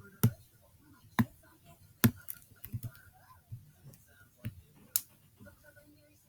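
Computer mouse clicks and keystrokes: irregular sharp clicks about a second apart, with a quick run of them near the middle.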